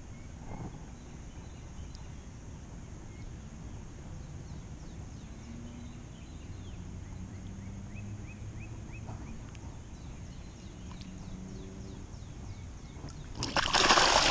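A released bass kicks free of the hand and bolts off through shallow water in one loud splash near the end, after a long stretch of low outdoor ambience with a few faint chirps.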